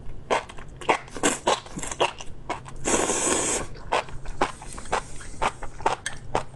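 Close-up mouth sounds of a person chewing spicy enoki mushrooms: rapid wet crunching and squelching clicks, with one longer rush of noise about three seconds in.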